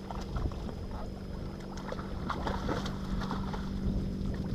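A boat's motor running with a steady low hum, under scattered light knocks and ticks.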